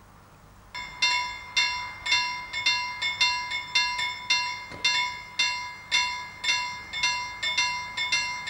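Level-crossing warning bell starting to ring about a second in, with rapid, slightly uneven strikes, two or three a second, as the crossing barriers come down: the warning that a train is approaching.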